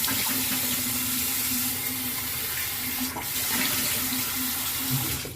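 Bathroom sink faucet running in a steady stream into the basin; it stops abruptly at the end.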